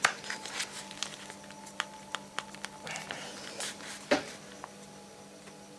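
Handling noise as the bent aluminium frame of an opened iPhone 6 is set on its edge across paper booklets and pressed down to straighten it: a sharp click at the start, a run of small clicks and scrapes, and a louder knock about four seconds in.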